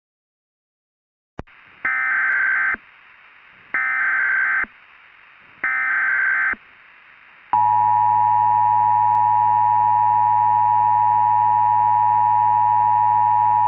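Emergency Alert System tones: three short bursts of screeching SAME header data, about a second apart, over a faint static hiss. About seven and a half seconds in, the steady two-tone EAS attention signal starts and holds, loud, with a slow beating.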